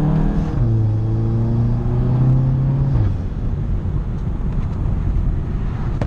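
Turbocharged four-cylinder engine of a Volkswagen GTI with an IS38 turbo, pulling under acceleration as heard from inside the car. The revs dip briefly about half a second in, then climb again until the driver lifts off about 3 s in, leaving a low rumble as the car rolls on.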